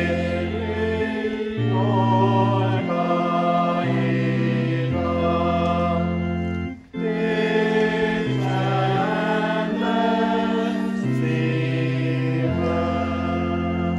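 Congregation singing a hymn to church organ accompaniment, held organ chords changing every second or so under the voices. There is a short break between lines about seven seconds in.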